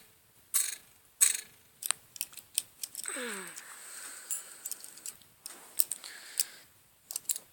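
Sharp metallic clicks and handling noise from an old Victorinox Swiss Army knife being handled, several clicks about a second apart, with soft rustling between them and a brief falling squeak about three seconds in.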